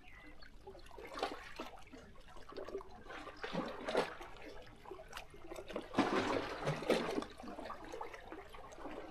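Small sea waves lapping and sloshing against shoreline rocks in irregular surges, the biggest about six to seven seconds in.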